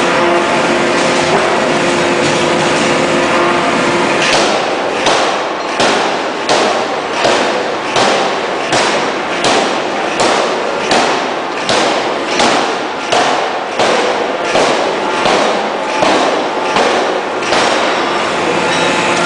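Electro-hydraulic forging hammer striking a glowing steel billet in a steady series of about twenty heavy blows, roughly three every two seconds, starting about four seconds in. Before the blows start there is a steady loud machinery din with a held hum.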